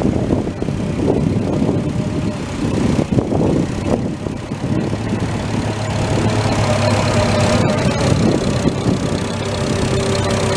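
Massey Ferguson tractor engine running while hauling a log, rough and uneven at first, then settling into a steady, even hum from about five seconds in.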